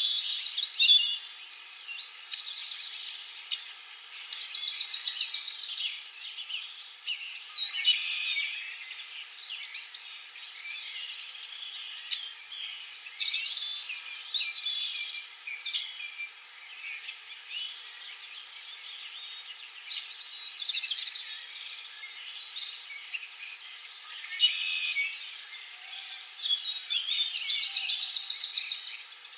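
Several songbirds chirping and singing in a spring chorus, with bright fast trills recurring a few times among many short chirps.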